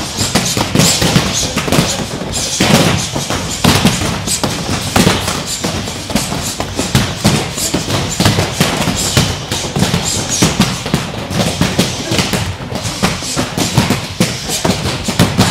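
Full-contact karate punches landing in quick succession on tall foam kick shields held by partners, several pads struck at once, so the thuds overlap in a fast, uneven patter.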